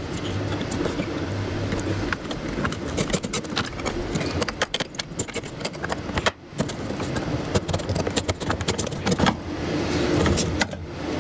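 Rapid, irregular clicks and rattles of hard parts being handled, over a steady background noise.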